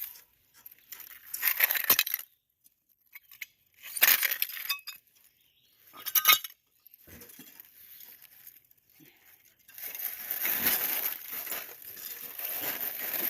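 Glass and metal debris clinking in three short bursts, some with a brief ringing, followed by a few seconds of rough scraping and rustling.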